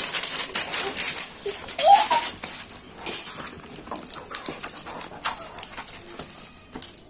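Clear plastic shrink wrap being peeled and crinkled off a large hard plastic toy egg, an irregular crackling, with a short squeak about two seconds in.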